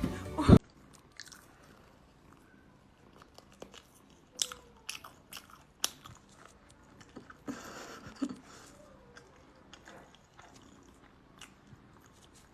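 Chewing and crunching: scattered short crunches and clicks at close range, after a sudden loud thump about half a second in.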